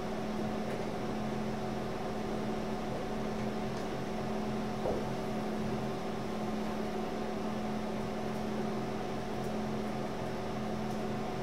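Steady electrical or mechanical hum made of several fixed tones over a faint hiss: the room tone of a lecture room.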